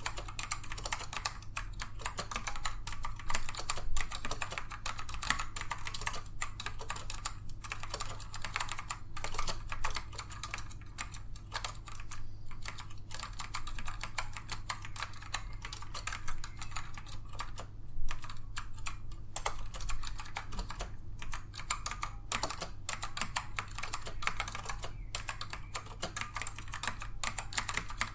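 Continuous typing on a Dell AT102W mechanical keyboard with black Alps switches, which are tactile and not clicky: a dense, unbroken run of keystrokes, with a couple of louder key strikes along the way. A steady low hum sits underneath.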